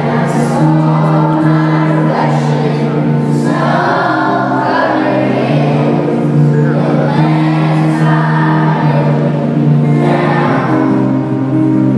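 Music with voices singing over long held chords and a steady bass line.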